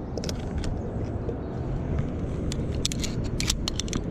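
Metal carabiners and a zipline pulley clicking and clinking as they are handled and clipped onto a steel cable, with a run of sharp clicks from about halfway through, over a steady low rumble.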